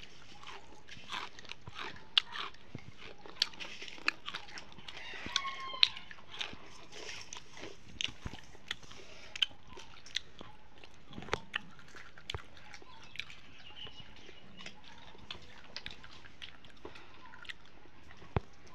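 Mouths chewing a crisp fried noodle snack: irregular, sharp little crunches coming every fraction of a second.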